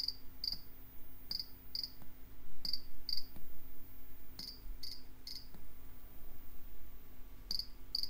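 Passive buzzer driven by an Arduino Nano, playing an electronic imitation of a cricket: short high-pitched chirps in groups of two or three, about half a second apart, with pauses of a second or more between groups.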